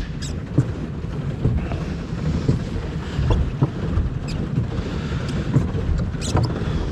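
Small boat under way at speed across a lake: a steady low churning of hull and water, with scattered light clicks.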